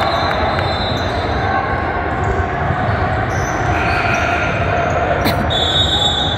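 Basketball bouncing on a gym floor over a steady din of voices in the hall, with a sharp knock about five seconds in.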